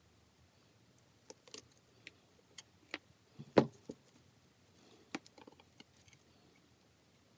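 Light clicks and taps of a small circuit board, wires and a pair of wire cutters being handled, with one sharper snap about halfway through and a few smaller clicks after.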